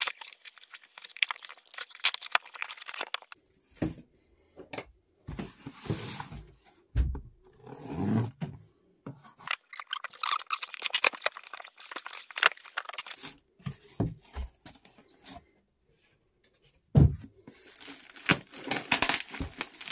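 Parcel packaging being opened and handled: tearing and crinkling of packing material with irregular rustling and clicks, and a few dull knocks as the boxes are moved.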